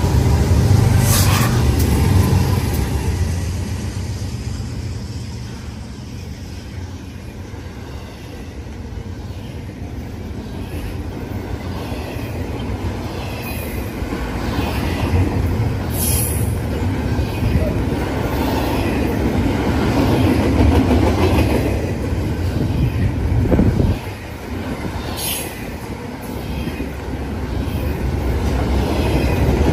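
BNSF diesel freight train passing close by: loud locomotive rumble at the start, then double-stack container well cars rolling past with a steady low rumble of wheels on rail, broken a few times by short sharp wheel squeals.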